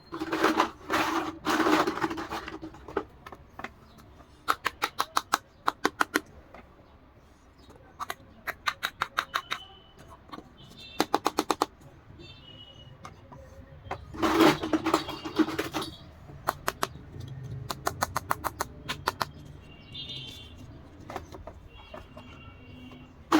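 Toy doll house parts being handled: several quick runs of sharp plastic clicks, like a ratchet, between bursts of rustling.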